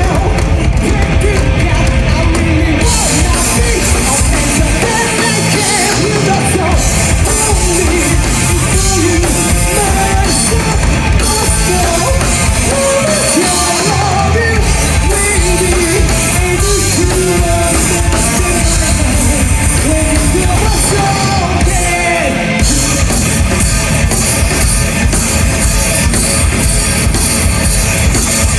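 Live rock band playing loudly: drum kit, electric guitars and bass under a lead vocalist singing and shouting into a microphone. The low end drops out briefly three times.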